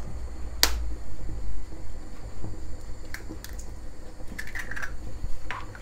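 An egg cracked against the rim of a stainless steel mixing bowl: one sharp knock about half a second in, then a few faint clicks and taps as the shell is opened and the egg drops onto sugar. A low steady hum runs underneath.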